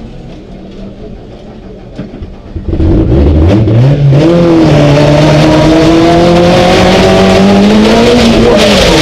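Skoda Fabia Super1600 rallycross car's 1.6-litre four-cylinder engine heard from inside the cabin under hard acceleration. It is fairly quiet at first. About three seconds in it jumps loud and the revs climb steeply, then it holds a high, slowly rising note at full throttle, with a brief dip near the end.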